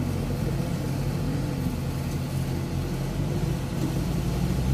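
Rice combine harvester's diesel engine running at a steady speed, a low even hum with no change in pitch.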